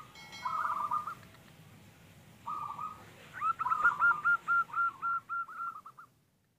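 Zebra dove (perkutut) cooing: quick series of short repeated notes in bursts, the longest from about three seconds in until it stops near the end. A brief faint ringing tone sounds at the very start.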